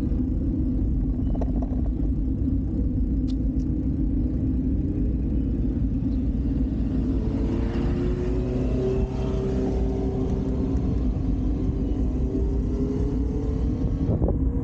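Street traffic: a steady low rumble, with a motor vehicle's engine passing from about halfway through, its pitch gliding up and down.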